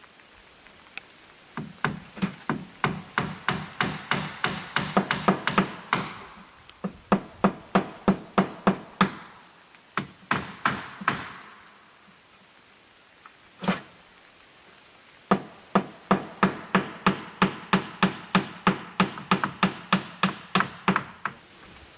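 Hammer striking along the top of aluminum fascia trim being fastened to the cabin: quick runs of sharp blows, about three to four a second, broken by short pauses, with one lone strike between runs.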